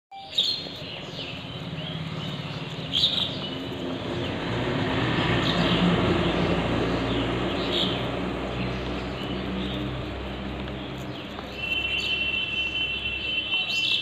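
A low engine hum from a motor vehicle swells to its loudest about six seconds in and fades out by about eleven seconds, with small birds chirping every few seconds. Near the end a steady high-pitched tone comes in.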